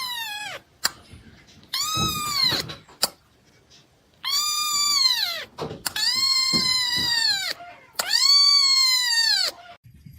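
A cat meowing over and over: five long meows, each rising and then falling in pitch, with short pauses between them.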